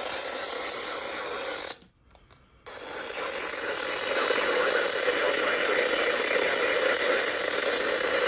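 Radio static: a steady hiss of receiver noise between alert broadcasts. It cuts out for about a second roughly two seconds in, then comes back and grows louder about four seconds in.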